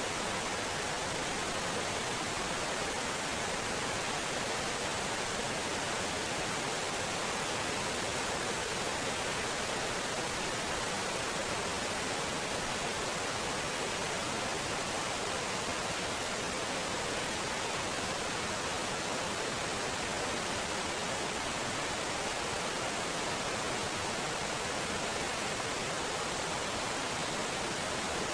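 A small waterfall cascading over rock boulders: a steady, even rush of falling and splashing water.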